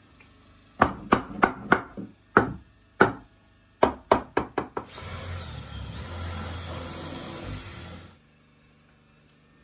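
Hammer striking a wooden pallet-board brace about a dozen times in quick, uneven groups, knocking it into a cupboard frame. Then a cordless drill runs steadily for about three seconds and cuts off suddenly.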